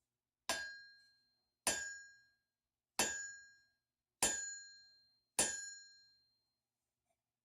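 Steel anvil face struck five times with a hammer at an even pace, each blow giving a clear, high ring that dies away within a second. The anvil is an antique 137 lb one that the owner believes is a Trenton.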